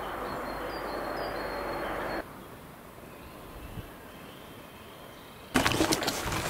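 Outdoor background noise that drops quieter about two seconds in, then loud, uneven rustling and crackling noise near the end.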